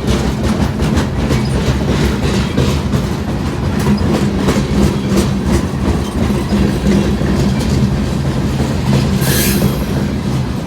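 Freight train cars rolling past close by: a steady rumble with steel wheels clacking over the rail joints and a brief hiss near the end.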